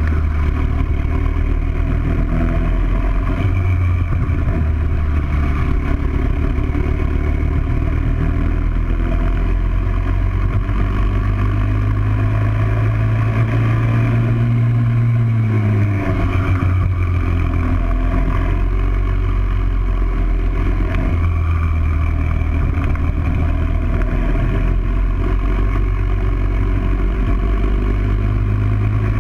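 Briggs & Stratton World Formula four-stroke kart engine running at racing speed, heard onboard the kart. The revs climb along the straight to nearly 7,000 rpm, drop sharply about fifteen seconds in as the kart slows for a corner, then climb again.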